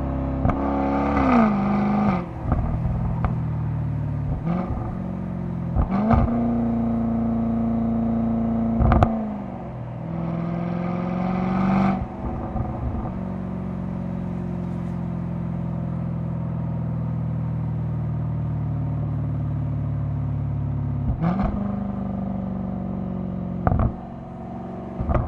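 Jaguar F-Type SVR's supercharged V8 at low road speed, its pitch stepping up and down through gear changes, with short sharp cracks at several of the shifts. For about eight seconds in the middle it holds a steady low drone.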